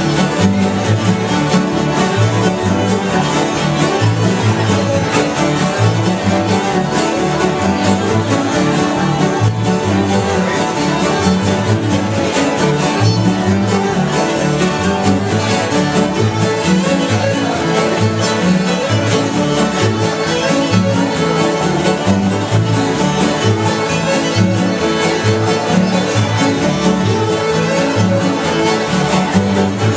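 Acoustic bluegrass string band playing a tune: fiddle leading over strummed acoustic guitars and mandolin, with an upright bass keeping a steady beat.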